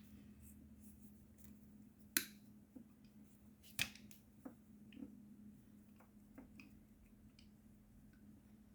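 Faint, scattered clicks and snips of a tool working on a USB cable as its insulation is stripped, two sharper clicks about two and four seconds in, over a low steady hum.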